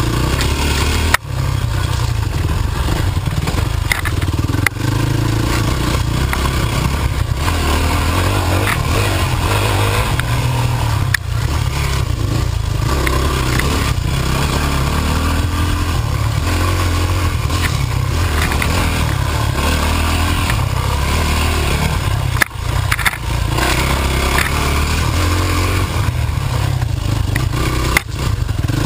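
Yamaha dirt bike engine running steadily under throttle on a trail ride. The engine sound drops briefly a few times.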